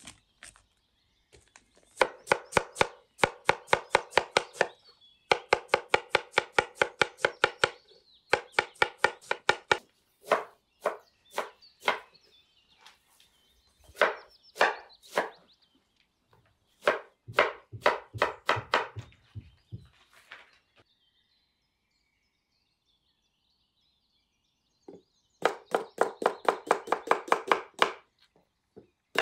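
Knife chopping vegetables in quick runs of strikes, about seven a second, each run lasting a few seconds, with short breaks between runs and a longer pause after the middle.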